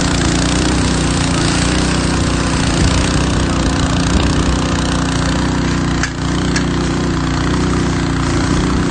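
Engine running steadily, as a pump engine does while supplying a fire hose, under a constant loud hiss of water spray and wind.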